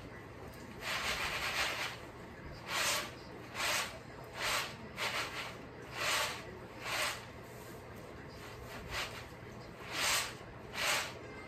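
Peanuts rustling and sliding in a woven winnowing tray, tossed in short repeated strokes about once a second to winnow off the papery husks. The first stroke is longer; the rest come as brief, even shushes.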